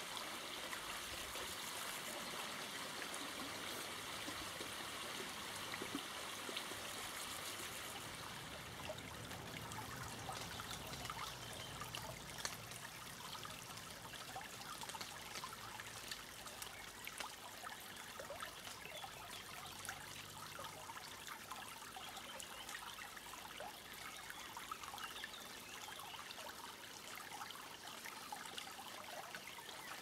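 Small forest brook trickling over stones, a steady water sound with many small splashes. For about the first eight seconds a brighter hiss sits on top, then drops away.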